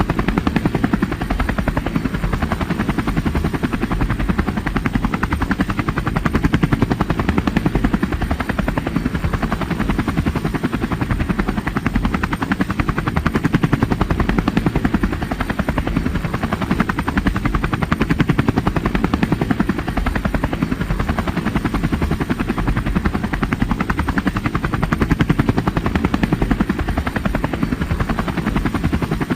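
Helicopter in flight: the steady, rapid chop of the rotor blades over the turbine's running, holding an even rhythm and level throughout.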